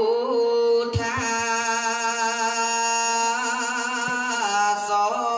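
A young Buddhist monk singing a melodic chant into a microphone. He holds long, steady notes and decorates them with wavering turns of pitch.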